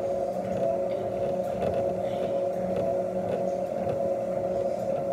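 Gym cardio machine running: a steady motor hum with a constant whine.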